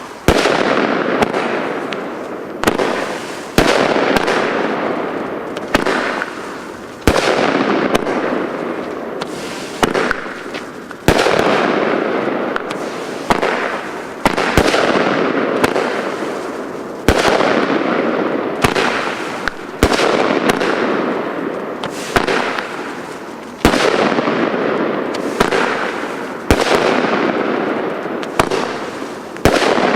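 Weco 'Godzilla' firework firing shot after shot, a sharp report every one to two seconds, each followed by a dense noise that fades over a second or two.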